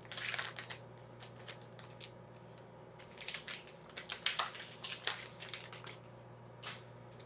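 Plastic trading-card pack wrapper crinkling and crackling in irregular bursts as it is torn open by hand.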